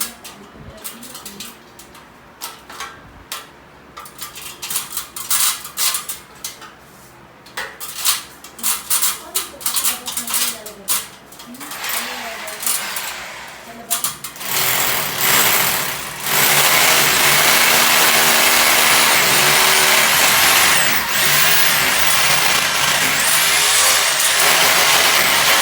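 Scattered knocks and taps of hand work, then from about halfway a power drill starts and runs loudly and continuously, its high whine wavering.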